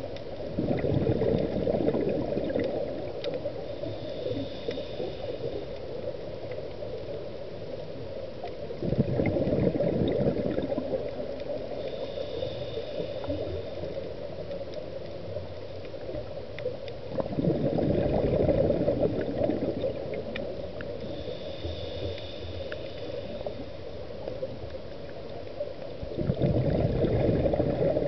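Scuba diver breathing through a regulator underwater. There are four long bursts of bubbling exhalation about every eight seconds, and between them a fainter, high hiss from each inhalation through the regulator.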